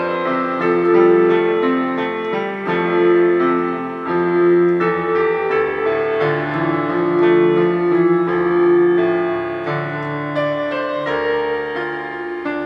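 Gentle keyboard music: sustained piano-like chords changing every second or two, with a slow melody above.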